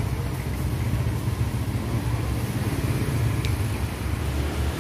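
Motorcycle engine running steadily, a low even rumble, with a faint short tick about three and a half seconds in.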